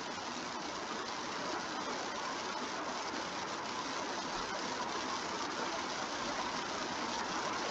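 Steady, even background hiss, with no distinct events, from an unseen source such as a fan or the microphone itself.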